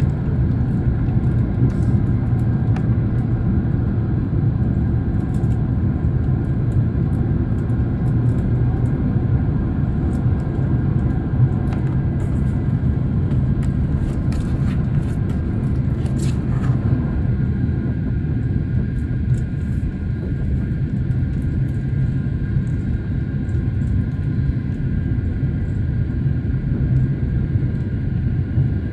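Steady drone of jet airliner cabin noise from the engines and airflow, with a strong low hum and scattered small clicks and rattles. About 17 seconds in, the sound thins slightly in its middle range.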